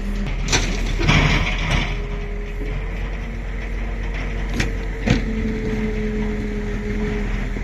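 Diesel engine of farm machinery running steadily. Over it come a few sharp knocks and, about a second in, a short rattling burst of noise.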